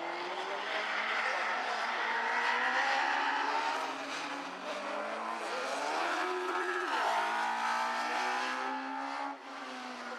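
Rally car engine heard from inside the cabin, revving hard and climbing in pitch, dropping sharply on gear changes or lifts about halfway through and again a little later, then rising again before easing off near the end.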